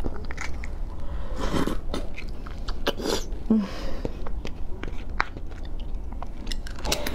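Close-up eating of soy-marinated raw crab: wet slurping and sucking of meat from the shell, twice at some length, among small sharp clicks of crab shell and leg pieces.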